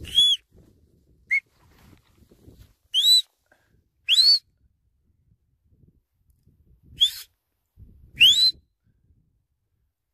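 Sheepdog handler's whistle giving commands to a working dog: six short, sharp whistle notes, most of them swooping upward in pitch, spread over the stretch, with the first near the start and the last about eight seconds in.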